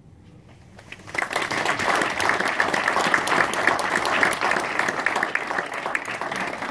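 A brief hush, then audience applause starts about a second in and keeps going.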